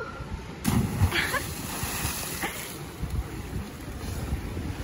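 A person jumping into the sea from a rock, hitting the water with a splash about half a second in, followed by wind buffeting the microphone over moving sea water.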